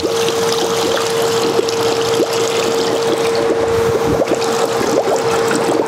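Water poured from a plastic container into the empty stainless-steel hopper tanks of a soft-serve ice cream machine, splashing and trickling into the metal tank, with a steady tone running underneath.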